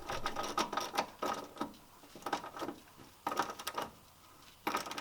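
Hand tools working metal parts: several short, irregular bursts of clicking and ratcheting, as from a ratchet turning a bolt in short strokes.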